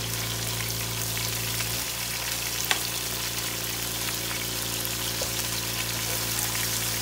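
Sliced chicken breast pan-searing in hot oil in a frying pan, a steady sizzle with fine crackling. A single click sounds a little under three seconds in.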